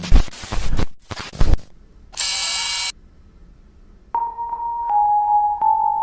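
Mock emergency alert broadcast audio: loud bursts of static crackle, then a short harsh buzz, and from about four seconds in a steady alert tone that steps slightly lower in pitch a second later.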